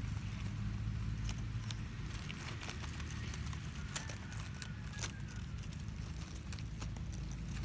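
A cat chewing and gnawing a plant stem and its roots among dry leaves: irregular small crunches and clicks over a steady low rumble.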